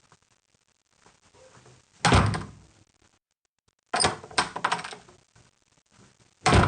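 Three separate sudden clunks, about two seconds apart, each fading out over about half a second; the second is a quick run of several clicks and knocks.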